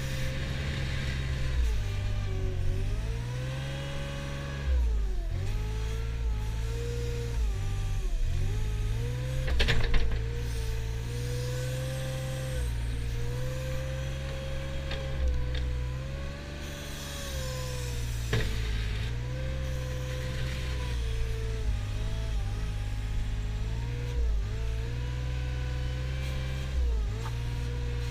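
Mustang compact wheel loader working under load: its engine drones steadily, the pitch sagging and recovering again and again as the bucket pushes into and lifts the grass pile. A couple of sharp knocks come about ten seconds in and again near eighteen seconds.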